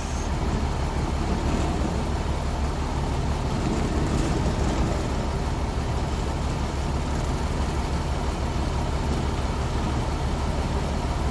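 Stump grinder's engine running steadily with a strong low hum while its cutting wheel, with no blades fitted yet, is held lightly against a stump, shaving it.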